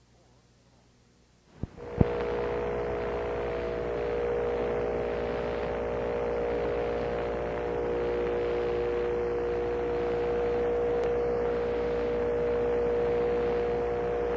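Near silence, then two sharp clicks about two seconds in, followed by a steady electrical hum of several held tones over hiss: the noise floor of a recorded radio feed between reports.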